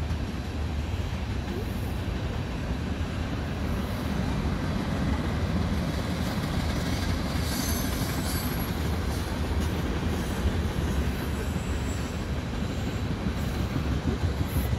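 Freight train of tank cars rolling past: a steady rumble of steel wheels on rail, with brief high wheel squeals about halfway through and again near the end.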